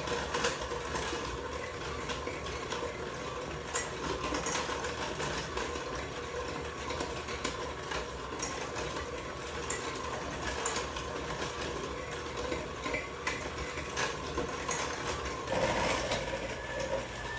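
Electric mixer running steadily as it creams butter into lemon-zested sugar, a steady motor whine with light ticks of the beaters in the bowl, louder briefly near the end. The butter is still fairly cool, so the creaming is slow going.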